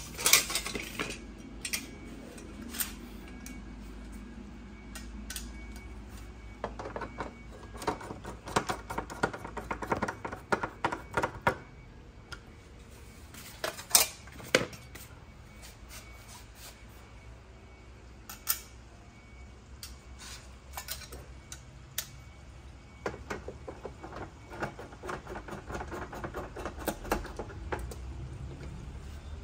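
Metal mounting hardware being handled: clinks, clicks and knocks, with two stretches of quick clicking, one about a third of the way in and one near the end, and a few sharper single clanks.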